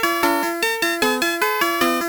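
Built-in electronic melody of a Winfun ABC'N Tunes Center toy: a quick tune of short synthesized bell-like notes, about four a second, each starting sharply and fading.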